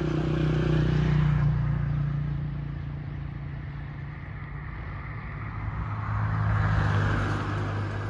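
Motor vehicle engine noise, a steady low hum that swells twice: about a second in and again near the end, as vehicles pass.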